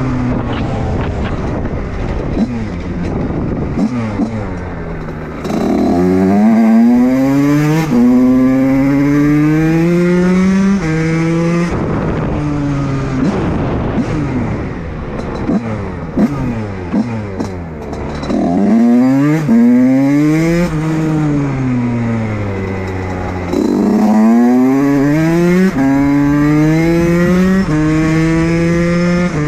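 Fantic TPR motorcycle engine pulling hard up through the gears, its pitch climbing and dropping sharply at each shift, then easing off and revving down. The pattern repeats twice more: it winds down about halfway through and again near the end before picking up.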